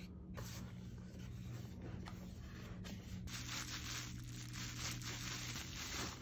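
Bubble-wrap sleeve crinkling and rustling as hands handle a wrapped camera lens, with many small irregular crackles.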